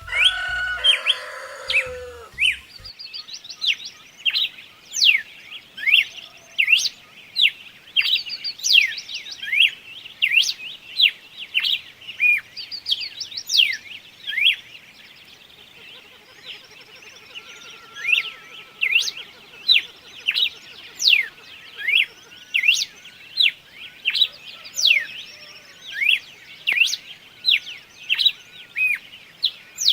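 Songbirds chirping steadily, a rapid string of short, sharp chirps that sweep down in pitch, one or two a second. In the first two seconds a louder, lower call falls in pitch, and around the middle a faint buzzy trill sounds beneath the chirps.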